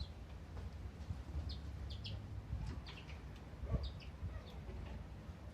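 Small finches in an aviary giving short high chirps, scattered irregularly, over a low rumble.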